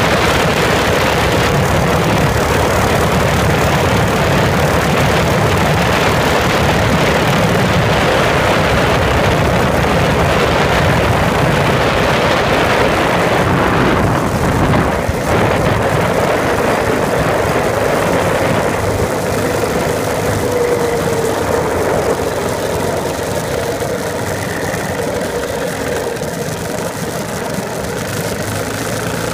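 Steady engine and road noise from a moving vehicle, easing off a little in the second half.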